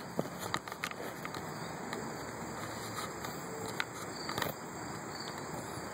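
Scattered knocks, clicks and rubs from a hand fumbling with the recording device right at the microphone, over a steady background hiss.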